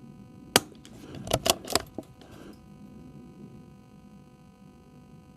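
Suppressed Tikka T1X .22 LR bolt-action rifle: one sharp shot about half a second in, then three quick metallic clicks about a second later as the bolt is worked for the next round.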